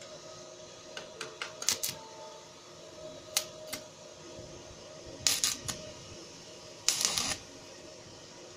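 Sharp metallic clicks and taps in small clusters as metal parts are handled, with a denser half-second crackle about seven seconds in, over a faint steady hum.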